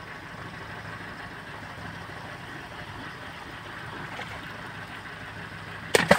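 A steady low mechanical hum, like a small engine running some way off, with two or three sharp knocks near the end.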